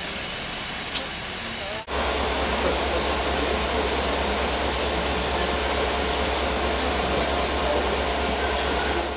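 Steady loud hiss of steam escaping from beneath steam-hauled passenger carriages, with a steady low rumble underneath; before a sudden cut about two seconds in, a fainter hiss with voices around the waiting steam locomotive.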